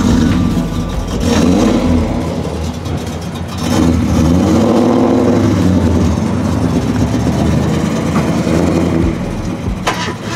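A car engine running with a deep, steady rumble, revved up and back down about four seconds in.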